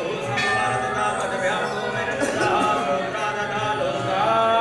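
Several voices singing a devotional chant, with long held notes.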